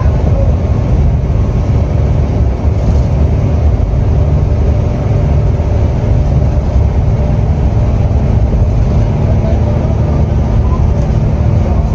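Steady engine drone and road noise inside the front cabin of an intercity coach cruising on a motorway.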